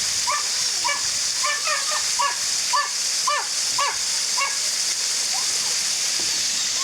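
Steady rush of a waterfall, with a dog whining over it in a run of short, high, rising-and-falling whimpers, about two a second, that fade out after four or five seconds.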